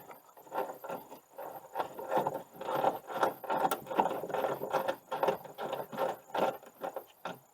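A T40 Torx screw at the top mount of a hatch gas lift support being backed out with a hand tool: a run of short, irregular rattling and scraping strokes, several a second.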